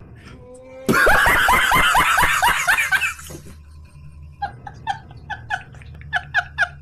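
A man laughing hard: a loud run of rapid laughs starts about a second in. It then falls to quieter, higher-pitched laughter in short, evenly spaced pulses.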